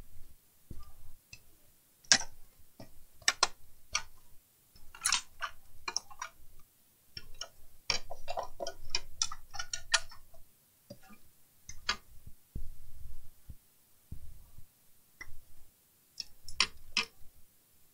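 Irregular clicks, taps and knocks of a desktop PC power supply's circuit board and metal case being handled and worked loose by hand.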